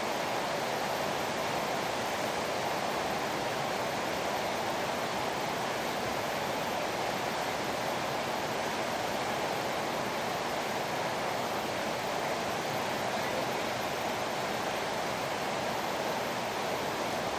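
Steady rushing of river water flowing over a stony bed.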